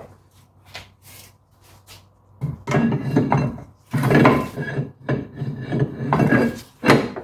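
Rear brake rotor turned by hand over the drum-in-hat parking-brake shoes, scraping in several bursts: the freshly adjusted shoes are starting to rub inside the drum. A few light clicks come first.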